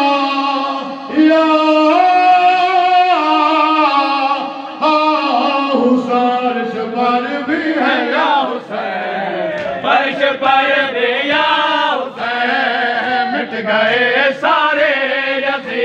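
Voices chanting a noha, the Shia mourning lament for Imam Hussain. Long held notes for about the first five seconds give way to a busier chanted line that rises and falls.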